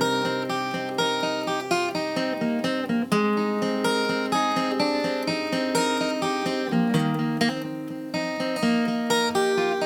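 Acoustic guitar played as the intro of a folk song, strummed and picked chords ringing with frequent changes of chord.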